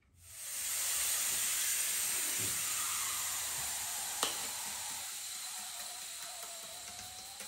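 Air hissing out of an ATV tire through its open valve after the valve core is pulled, the tire deflating. The hiss starts suddenly and slowly fades as the pressure drops, with a faint whistle sliding lower in pitch; one sharp click about four seconds in.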